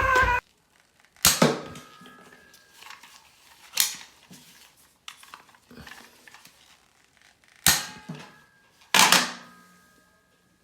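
Music cuts off about half a second in. Then come four sharp pops of a Nerf blaster firing darts, with a few fainter clicks between them, and a short ringing tone after the first and last pops.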